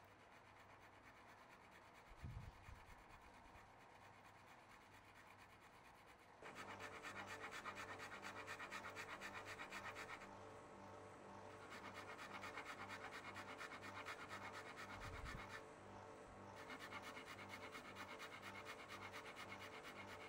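Flat metal file scraping in quick, even strokes across the nut of a 1970 Fender Jazz Bass, shaping the new nut down a little at a time. The filing starts about six seconds in and eases briefly twice, with a soft bump early on and another near the middle.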